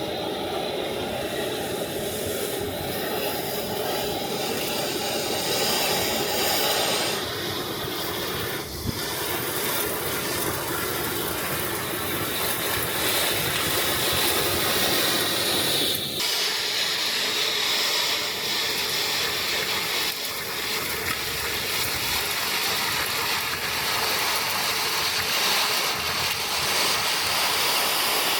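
Industrial vacuum with a three-phase side channel blower running loud and steady, sucking up foundry dust, slag and metal drill chips through its hose and pickup tools. The rushing noise changes character about 7 seconds in and again about 16 seconds in.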